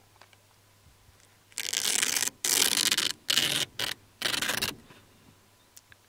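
Five short bursts of rough scraping noise over about three seconds, starting about a second and a half in.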